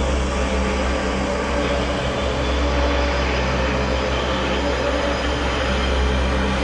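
Car engine idling with a steady deep rumble.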